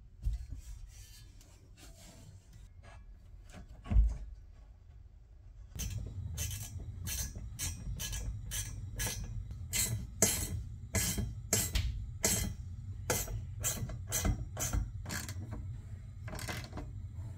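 Hand ratchet clicking in short runs, about two to three clicks a second, as the harness bar's mounting bolts are tightened; a single thump about four seconds in.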